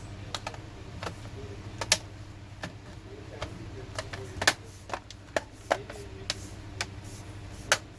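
Irregular sharp clicks and taps of hands and tools working on a laptop's plastic and metal parts, over a steady low hum.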